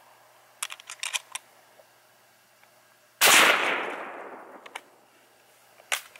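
A single shot from an 8mm Mauser (7.92×57) bolt-action rifle about three seconds in, with a long echo fading over about a second and a half. A few small clicks come from handling the rifle before the shot and again near the end.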